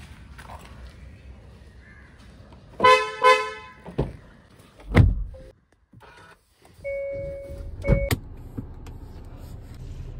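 Hyundai Creta unlocking with two short horn chirps, then a door click and the door thudding shut. Inside the cabin a steady warning chime sounds as the push-button start is pressed, and the engine starts and settles into a low, steady idle.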